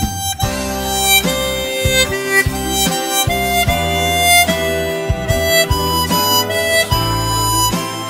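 Easttop EMP-12 12-hole aluminium-comb chromatic harmonica playing a melody, stepping from note to note with some notes held longer, over a low plucked accompaniment.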